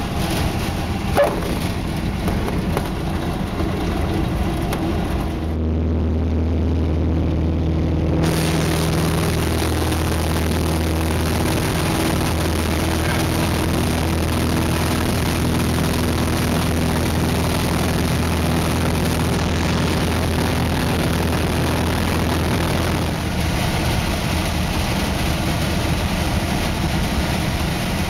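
Clipped-wing Piper Cub's piston engine running at takeoff power through the takeoff roll and climb-out, with rumble and wind noise heard from the cockpit. About five seconds in it settles into a steady droning hum.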